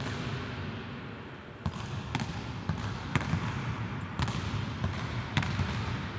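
A basketball is being dribbled on a hardwood court. There is a sharp bounce about every half second, starting a couple of seconds in.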